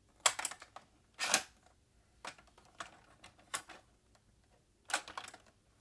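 Hard plastic clicks and knocks from handling the Shopkins Fashion Boutique playset and its small figures. There are about six separate sharp clicks, roughly a second apart, with the loudest two in the first second and a half.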